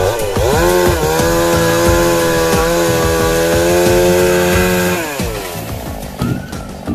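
Chainsaw revving up, running at a steady high pitch for about four seconds, then winding back down. Background music with a beat plays underneath.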